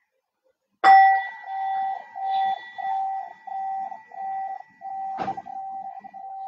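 A singing bowl struck once, ringing with a steady pulsing warble, then struck again about four seconds later and left to ring on. It sounds the close of the class's final relaxation.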